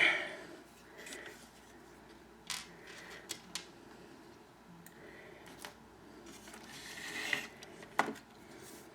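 Scattered small clicks and taps of plastic toy parts and tiny screws being handled, the loudest right at the start, with faint rustling in between.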